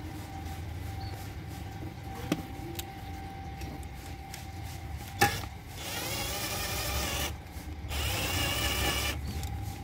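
Cordless drill-driver spinning up and running in two short bursts of about a second and a half each, driving a screw into the automatic fuel cap's mounting bracket. A sharp click comes just before the first burst.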